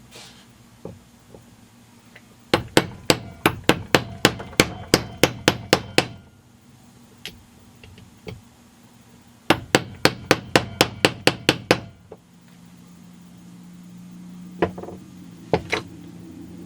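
Hammer tapping on a 13 mm deep socket to drive an aftermarket seal into a Stihl MS200T chainsaw crankcase: two runs of quick, even taps, about four a second, with a pause between. Near the end a low steady hum and two single knocks.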